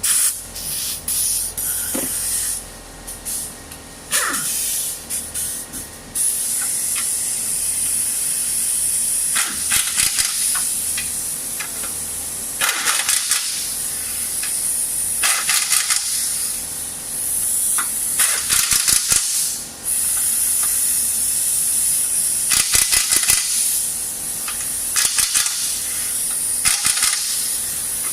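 Pneumatic wrench tightening the steering rack mounting bolts: repeated rattling bursts of about a second each over a steady hiss of air.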